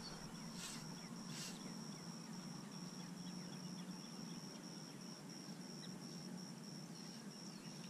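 Insects chirping in a steady high-pitched trill that pulses a few times a second, over a faint low hum.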